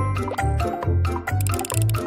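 Upbeat cartoon background music with a bouncy bass line pulsing about three times a second and short plucky notes, with a brief bright swish near the end.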